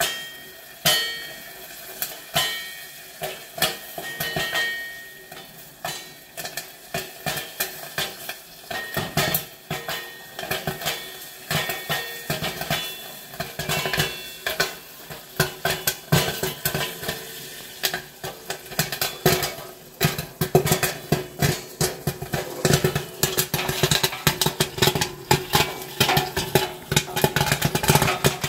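Popcorn kernels popping in the kettle of a Great Northern GNP-800 8-ounce popcorn machine: scattered pops at first, quickening into a dense, near-continuous run of pops in the last third.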